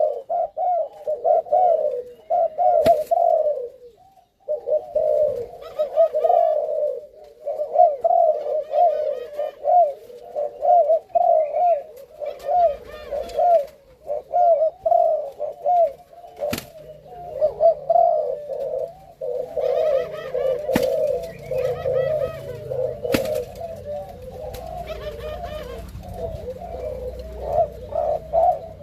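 Spotted doves of the Malaysian cu gáy breed cooing almost without pause, a long run of repeated low coo notes with a brief break about four seconds in. A few sharp clicks stand out over the cooing.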